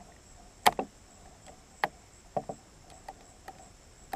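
Several separate metallic clicks and clacks from a semi-automatic .22 rifle's action being worked by hand to clear a failure to cycle. The loudest click comes about two-thirds of a second in.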